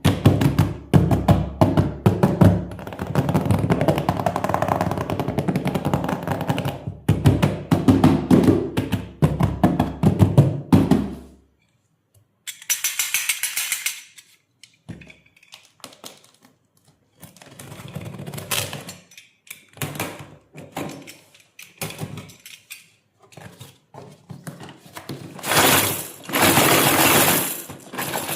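Unboxing of a plastic toy doctor set: clicks and knocks of toy pieces and packaging being handled, with loud crinkling of plastic wrap twice in the second half. Music plays over the first ten seconds or so.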